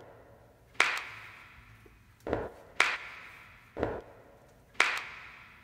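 Sparse hip-hop drum beat with no other instruments: a sharp hit with a long reverberant tail about every two seconds, and a deeper, shorter hit between each pair.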